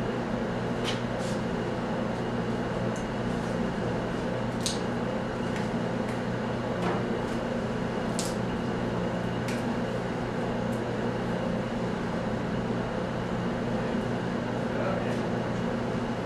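Steady low mechanical hum with a few fixed tones, unchanging in level, with a scattering of brief sharp clicks and taps, mostly in the first ten seconds.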